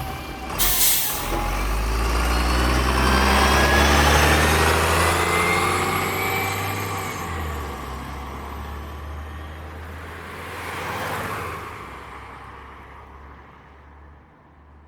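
Bus pulling away from a stop. A short hiss of its air brakes releasing about a second in, then the engine revs up with rising pitch as the bus accelerates away, and the sound fades into the distance.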